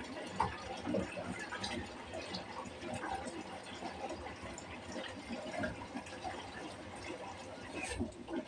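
Water splashing and dripping as hands swish and lift kangkong (water spinach) in a plastic basin of water.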